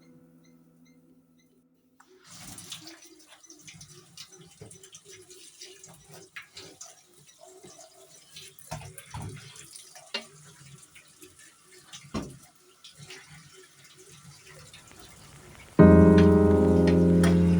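Faint, irregular clicks and knocks over a low hum, typical of small handling noises. Loud background music starts suddenly near the end.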